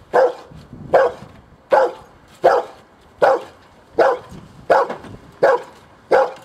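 Belgian Malinois barking steadily at a motionless decoy in a bite suit, about nine sharp, evenly spaced barks a little over one a second: a protection dog guarding the decoy.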